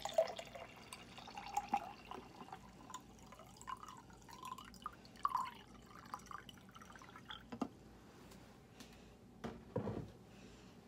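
Lemonade poured from a plastic pitcher into a drinking glass: a faint trickle and splash of liquid filling the glass, then a few sharp clicks and a low knock near the end.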